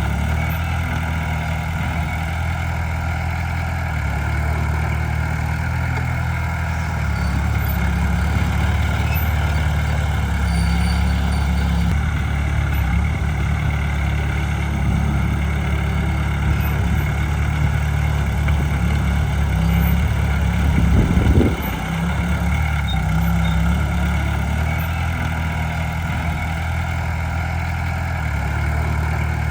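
Heavy diesel engine of earthmoving machinery running steadily, with a brief rev about 21 seconds in.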